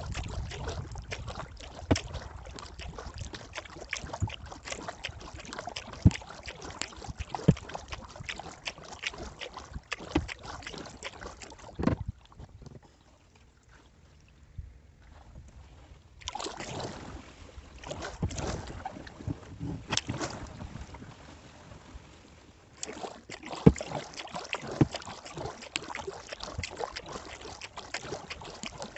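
Kayak paddling: the paddle blades dip and splash with water dripping and trickling off them, and now and then a sharp knock. The strokes pause for a few seconds about halfway through and briefly again later.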